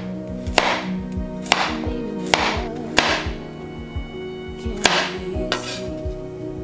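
A wide-bladed kitchen knife slicing a carrot on a cutting board: about six sharp chops, unevenly spaced. Background music with a steady beat plays underneath.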